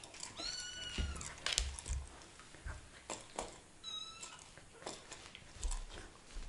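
Very young kittens mewing in thin, high calls, once about half a second in and again about four seconds in, with a few soft knocks and thumps in between.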